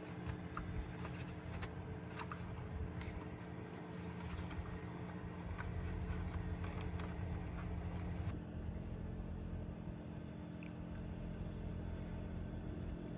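Steady low mechanical hum with scattered light clicks and taps from handling PVC pipe and fittings; the hum shifts in tone about eight seconds in.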